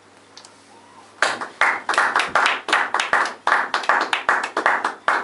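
Hand clapping at the end of a performance, starting about a second in as a steady run of sharp claps, about four a second.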